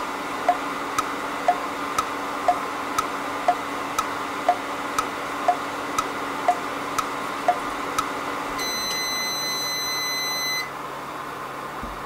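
Sharp combination microwave oven running with a steady hum over sharp ticks, two a second. About nine seconds in, the hum stops and the oven sounds one long beep of about two seconds, signalling that the heating is finished.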